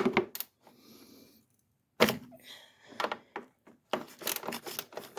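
Irregular metallic clicks and knocks of a hand tool working a bolt on the engine's cover, coming thicker near the end, with a brief soft hiss about a second in.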